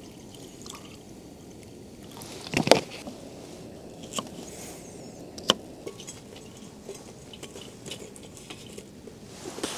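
Camp cookware being handled: a few light knocks and clicks, the loudest about a quarter of the way in, over a faint steady hiss.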